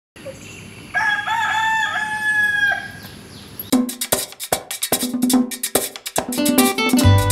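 A rooster crows once, about a second in, a drawn-out call of nearly two seconds with a bending pitch. Near four seconds upbeat Latin dance music starts with sharp percussive hits, and a bass line comes in near the end.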